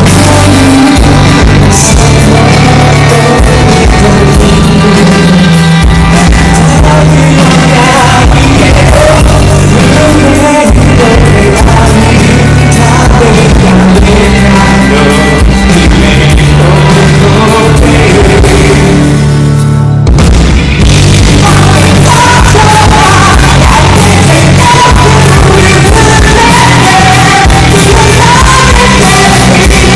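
Live rock band playing loud, with a singer's voice over the band. The music briefly thins out about two-thirds of the way through, then the band comes back in and the vocal line stands out.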